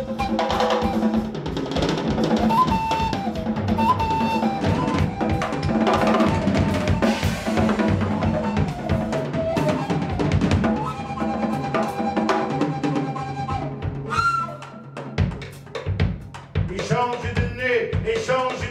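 Drum kit and percussion playing a dense, busy rhythm with bass drum, snare and rimshots over a melodic line. The playing thins out briefly about fifteen seconds in, then the drums come back in.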